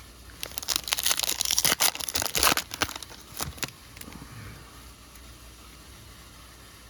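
A foil trading-card pack wrapper being torn open and crinkled by hand, a dense run of crackling and tearing that lasts about three seconds and trails off into a few last snaps.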